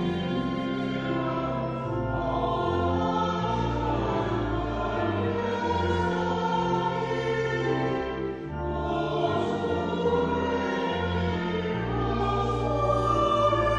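A hymn sung by a small group of voices with instrumental accompaniment, long held bass notes changing every second or two under the singing.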